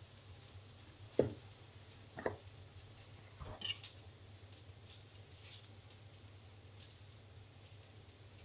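Quiet wet handling of a peeled tomato being deseeded with a small knife over a steel sink and mesh strainer: soft squelches with a few short taps, the clearest about a second and two seconds in.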